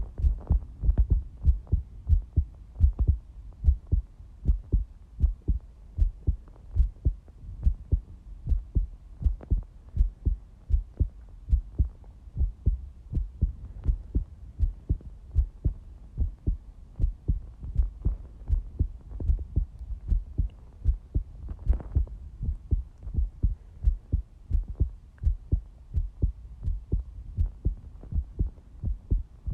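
Human heartbeat: a steady rhythm of short, low, dull thumps, the beats following closely one after another.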